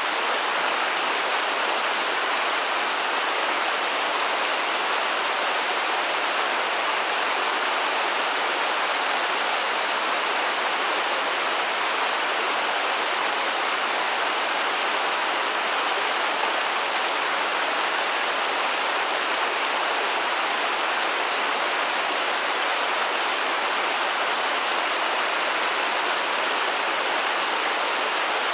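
Stream water rushing: a steady, even sound of running water.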